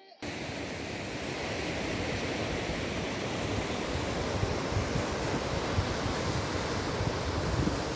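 A steady rushing noise that starts abruptly just after the start, with a flickering low rumble underneath.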